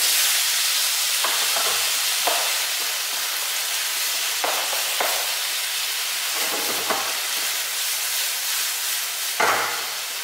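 Squid and chicken pieces sizzling in oil in a non-stick frying pan, with a plastic spatula scraping and knocking against the pan every second or two. The loudest knock comes near the end.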